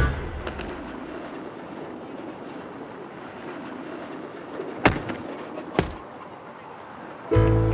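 City-street ambience: a steady hum of a busy street with a tram on its rails. Two sharp knocks come about five and six seconds in.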